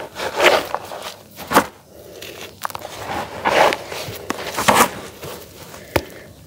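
Hands squeezing and crumbling wet, grainy charcoal cakes into gritty paste in a plastic tub. The sound is irregular gritty crunches and squishes, with several louder squeezes.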